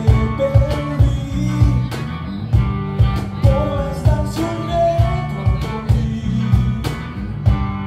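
A small live band playing: a man singing into a microphone over electric guitar, electric bass and a cajón keeping a steady beat of about two strikes a second.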